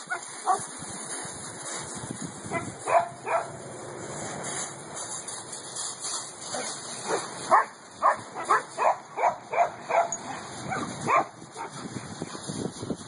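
Rhodesian ridgeback giving short yips and barks, a few at first, then a quick run of about ten at roughly two a second in the second half.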